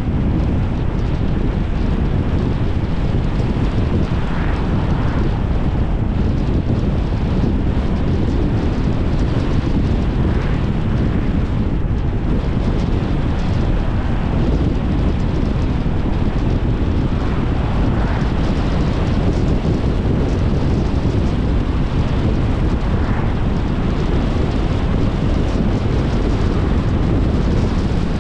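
Steady low wind rumble on the microphone, mixed with road noise from a car on the move.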